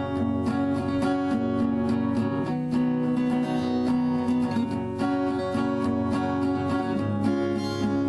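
Background music: strummed acoustic guitar with a steady rhythm.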